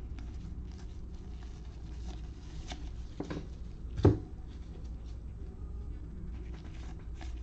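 Trading cards being flicked through in gloved hands: faint soft scrapes and small clicks over a low steady hum, with one sharper click about four seconds in.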